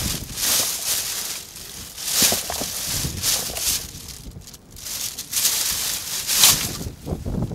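Plastic bags and wrappers crinkling and rustling in irregular bursts as hands dig through rubbish, with a brief lull about four seconds in.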